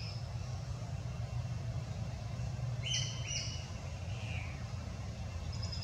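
A steady low rumble, with two short high chirps about halfway through, a falling chirp just after them, and another brief chirp near the end.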